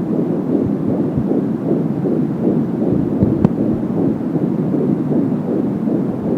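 Fetal heartbeat picked up by a Doppler ultrasound monitor: a steady rhythmic whooshing pulse, with one small click about halfway through.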